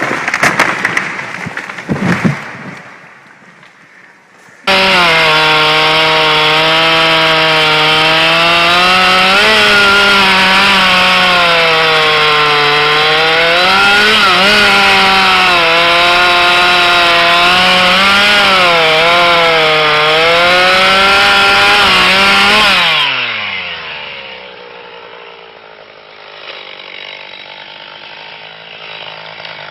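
Chainsaw running at full throttle while cutting into wood, its pitch dipping and recovering under load. After nearly twenty seconds it is throttled back and its pitch falls away. Before it starts there are a couple of seconds of loud cracking knocks and a short lull.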